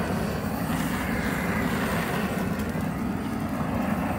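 Handheld propane torch burning with a steady rushing flame, singeing the small hairs off plucked chickens.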